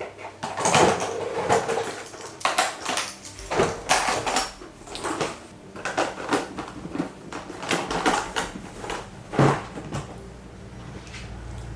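Irregular knocks, clicks and clatter of objects being handled, with a low steady hum that comes in partway through and grows stronger near the end.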